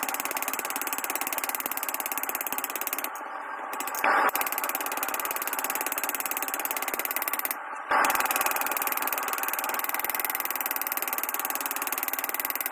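Hand hammer striking a red-hot canister-damascus knife blade on an anvil in rapid, even blows while the blade is forged to shape. The hammering breaks off abruptly twice, briefly.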